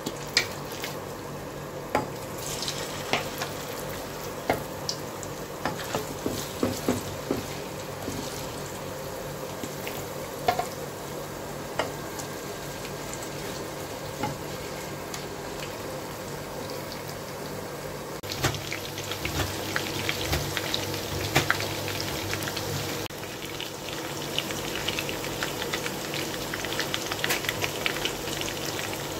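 Marinated chicken pieces frying in hot oil in a pot: a steady sizzle with frequent crackles and pops, stirred now and then with a wooden spatula. The sizzle grows louder and busier about eighteen seconds in.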